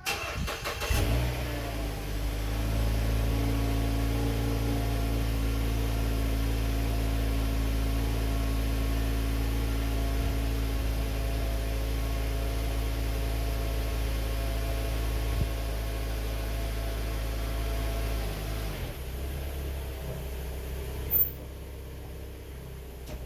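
A 2012 Mazda 6's engine is started, catches after a brief crank, and idles steadily. About nineteen seconds in, the idle drops to a lower, quieter note, and a single short click follows soon after.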